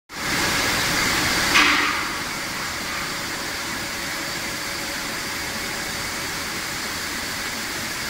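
Power cable extruder machine running: a steady mechanical drone with hiss, and a brief louder hiss about one and a half seconds in.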